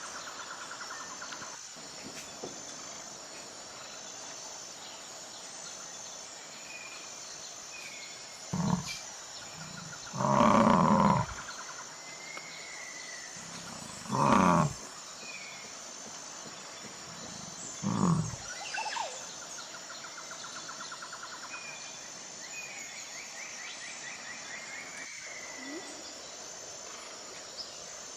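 A large wild animal's loud calls, four of them about 8, 10, 14 and 18 seconds in, the second one the longest. In between there is a steady background of high pulsing and short bird chirps.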